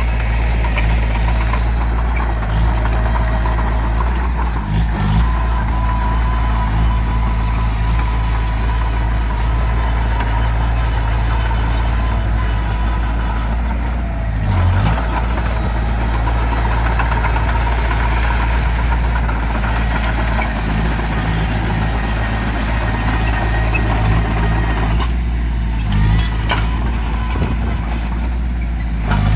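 Heavy diesel engine of earthmoving machinery running steadily, with a few short clunks along the way.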